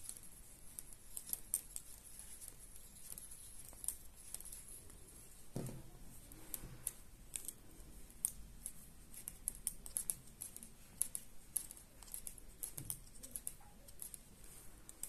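Metal knitting needles clicking lightly and irregularly as stitches are worked in fluffy yarn, with a soft thump about five seconds in and another near the end.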